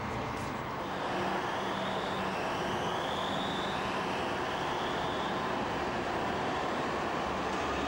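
Alstom RegioCitadis tram-train departing and passing close by: a steady rolling rumble of wheels on rail that swells over the first second, with faint whines gliding in pitch above it.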